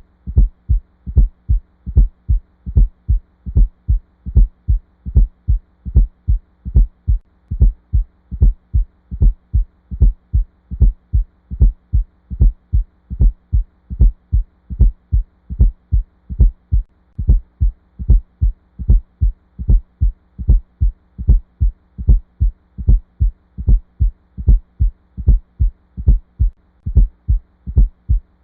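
Heartbeat with a fourth heart sound (S4, atrial gallop): a low extra sound late in diastole, just before S1, repeating in an even beat of low thumps. A faint steady hum runs underneath.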